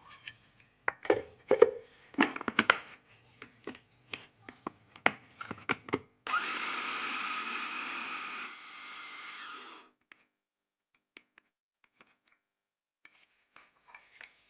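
Kitchen utensils clattering with sharp knocks and clicks, then a small electric kitchen appliance motor runs for about three and a half seconds, drops in level partway, and stops.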